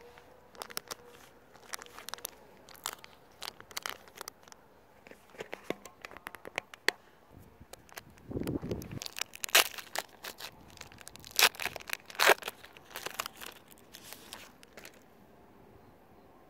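Foil Pokémon card booster pack crinkling and crackling as it is handled and torn open by hand, a string of sharp crinkles with the loudest around the middle, dying away about fifteen seconds in. A short low rumble just past eight seconds in.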